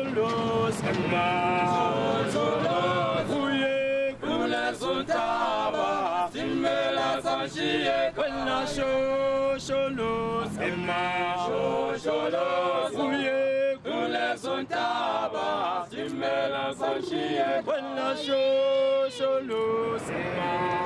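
A choir of men's voices singing in harmony, unaccompanied, with held and sliding notes and sharp clicks throughout.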